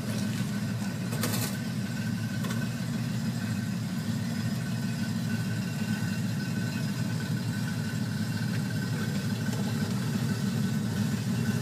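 Porsche 964's air-cooled flat-six engine idling steadily, with one brief click about a second in.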